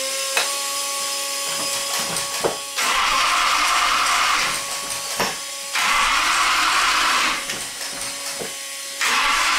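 An electric fuel pump priming the Hemi's fuel system in three short runs of a steady hissing whir, each about two seconds, switching on and off abruptly. Sharp clicks fall between the runs over a faint steady hum.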